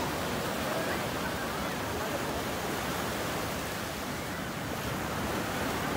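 Sea surf breaking and washing up the beach, a steady rushing noise, with faint voices of beachgoers in the background.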